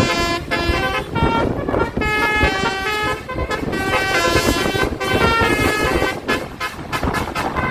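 Bus telolet horn: a bus's multi-tone musical air horn playing a quick melody of changing notes, over a noisy background.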